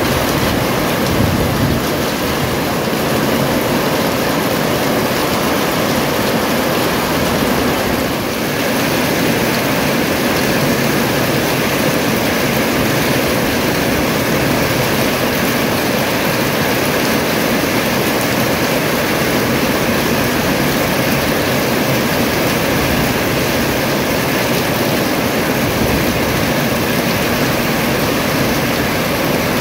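Steady rain falling, with water dripping and running off the edge of a roof, dipping briefly about eight seconds in.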